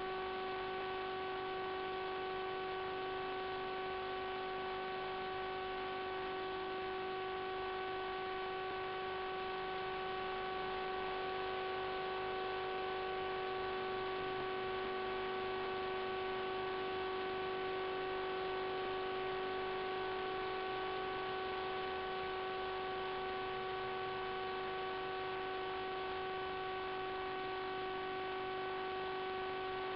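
Steady electrical hum with several fixed overtones over a hiss, unchanging throughout.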